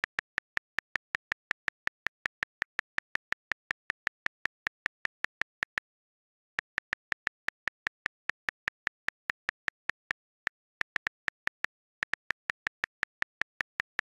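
Calculator app button-tap clicks, short sharp ticks repeated about five times a second with dead silence between them, each tap counting one press. They break off briefly about six seconds in and turn halting around ten to twelve seconds in before resuming at the same pace.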